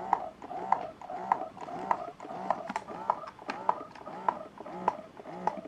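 Spectra wearable breast pump, fully assembled with its flange covered, running in massage mode at level 1: the motor cycles its suction about one and a half to two times a second, each cycle a click and a short whir.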